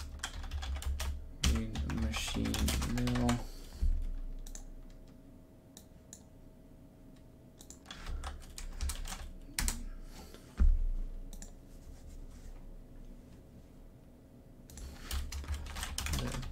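Typing on a computer keyboard: runs of key clicks at the start and again near the end, with a quieter stretch of scattered single keystrokes between them and one louder knock about ten and a half seconds in.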